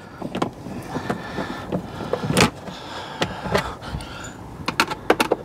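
Light clicks and knocks of a Phillips screwdriver and hands working screws out of the plastic cassette-toilet bay, with a sharper knock about halfway through and a quick run of clicks near the end.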